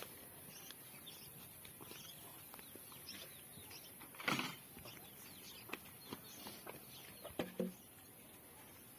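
Quiet farmyard sounds: faint bird chirps and scattered small knocks, with one short louder noise about four seconds in and two brief sounds near the end.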